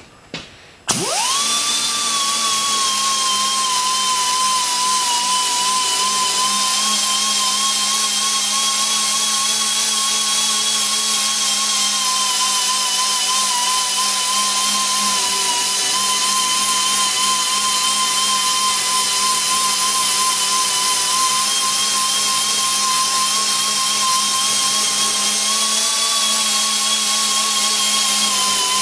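Air-powered die grinder with a green abrasive disc, cleaning rust and dirt off cast iron. It starts about a second in and runs at a steady high whine over a strong hiss of air.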